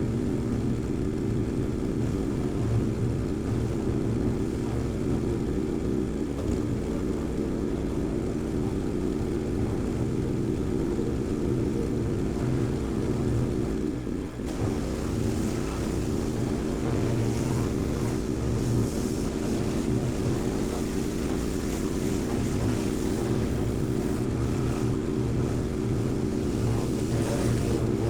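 An engine running steadily at a constant speed; about halfway through, a hiss joins it.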